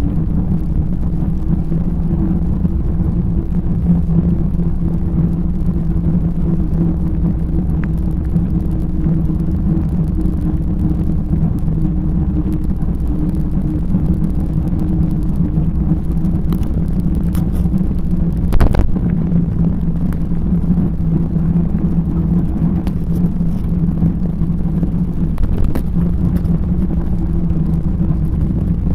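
Wind buffeting the microphone and bicycle tyres rolling on a tarmac path while riding, a steady low rumble with scattered light clicks and one sharp knock about two-thirds of the way through.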